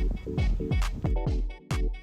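Electronic dance music with a steady, punchy kick-drum beat, synth chords and hi-hats.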